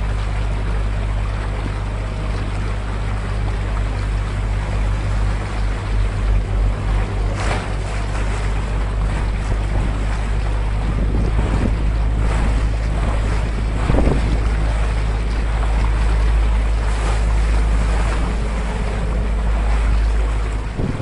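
Motor of an open canal tour boat running steadily under way, a constant low hum, with its wake churning and splashing close by and wind buffeting the microphone. The splashes come louder a couple of times, about seven and fourteen seconds in.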